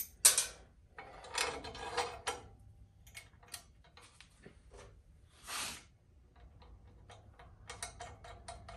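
Small metal clicks and clinks of a bolt, washers and nut being fitted by hand through steel motorcycle frame plates, with a sharp clack just after the start, a short scrape about five and a half seconds in, and a quick run of light clicks near the end.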